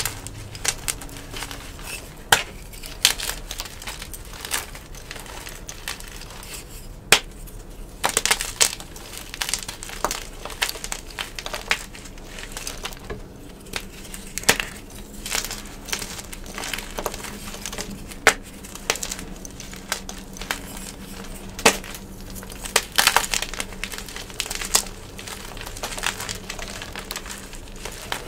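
Blocks of yellow-dyed gym chalk (magnesium carbonate) crushed and crumbled in the hands: a running medium crunch of soft crackles, broken by sharper snaps as pieces break, which come thicker about a third of the way in, around the middle and again past three-quarters.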